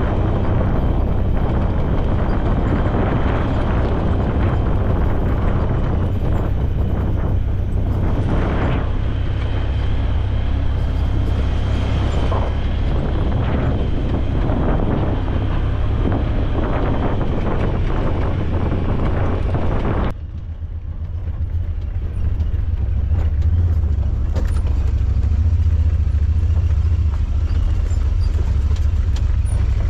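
A vehicle on the move with heavy wind buffeting on the microphone. About twenty seconds in, the higher road and engine noise drops away suddenly, leaving mostly the low wind rumble.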